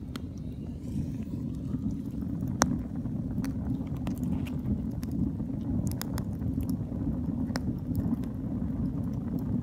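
A wood fire burning in a Dakota fire hole, heard from down inside the air-intake tunnel: a steady low rumble with scattered sharp crackles from the burning wood, the loudest about two and a half seconds in.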